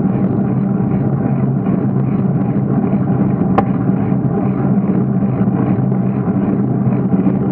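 Steady, muffled rumble of wind and tyre noise picked up by a bicycle-mounted action camera while riding, with a single sharp click about three and a half seconds in.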